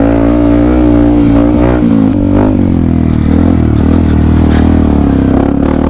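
Yamaha WR155R's single-cylinder four-stroke engine running under changing throttle as the dirt bike rides a dirt track, its pitch dropping and rising several times. A few short knocks come through as it rides.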